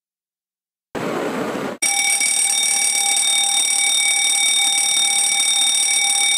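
Fire alarm sounding, a loud steady shrill tone that starts about two seconds in, after a brief burst of noise.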